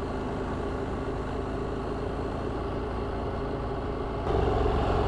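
KTM adventure motorcycle engine running as the bike rides slowly along a sandy track; the sound steps up louder about four seconds in.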